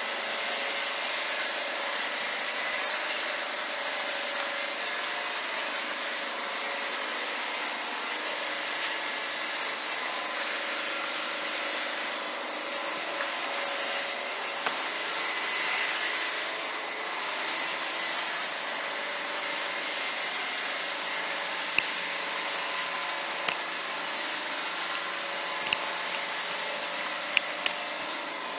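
Airbrush spraying white paint: a steady hiss of air and paint that swells and eases in uneven passes as the trigger is worked.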